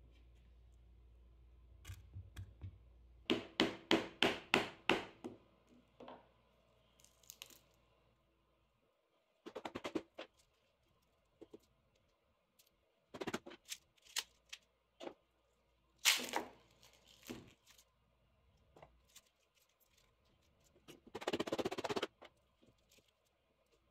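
Sharp cracks and knocks as a chisel is struck to split hardened plastic wrap off a cast epoxy-resin-and-wood blank, with a quick run of clicks early on and a short burst of tearing plastic near the end.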